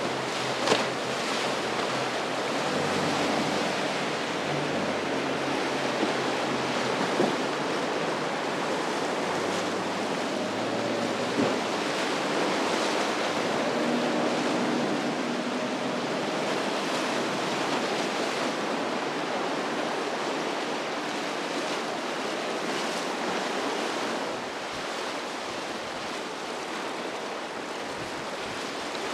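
Ocean surf rushing and breaking at an inlet, with wind buffeting the microphone and a few brief thumps. A boat engine hums faintly underneath in the first half.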